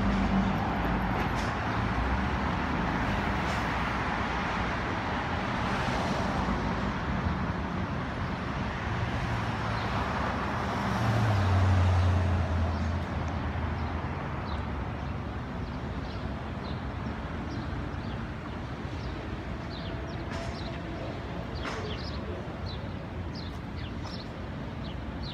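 Street traffic on a city avenue. A passing vehicle's deeper engine rumble is loudest about halfway through, with light clicking near the end.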